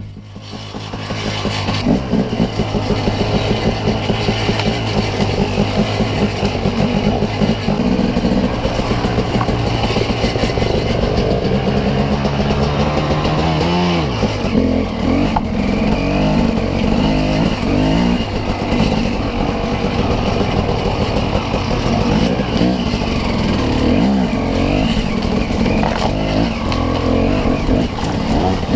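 Dirt bike engine under load as the bike is ridden up a wooded trail, heard from the rider's helmet camera, the revs rising and falling with the throttle. The revs dip at the start and build back over the first couple of seconds, with a quick rev climb and drop about halfway through.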